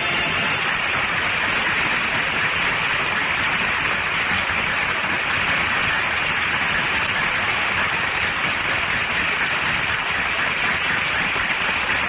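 Audience applauding steadily: a dense clapping with no music or voices over it.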